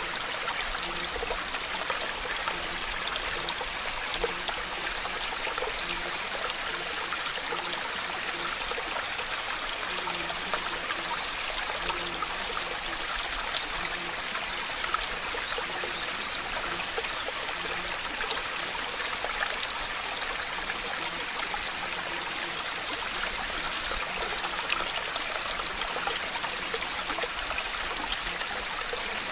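Steady rushing-water ambience: an even, unbroken hiss of running or falling water, with faint low tones coming and going beneath it.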